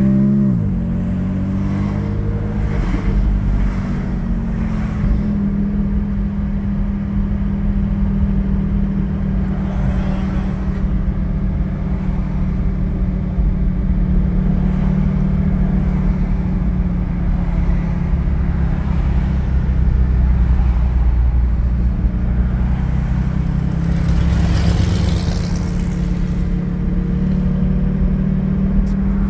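Porsche 718 Cayman GT4's 4.0-litre flat-six with Soul over-axle exhaust pipes, heard through open windows while cruising at low revs in second gear. The revs drop right at the start, then the engine holds a steady low note over road and wind noise.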